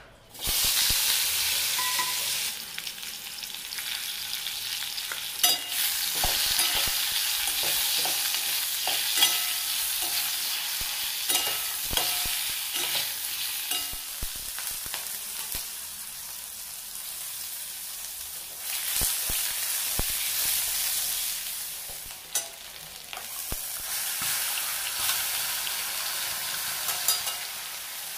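Food sizzling in hot oil in a cooking pan as fish curry is cooked, with a spatula stirring and clicking against the pan. The sizzle eases for a few seconds midway, then flares up again.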